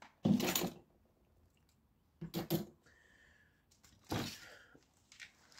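Tool-handling noise on a workbench: three short clunks and rustles about two seconds apart as a power tool is set down and another is picked up, with quiet between them.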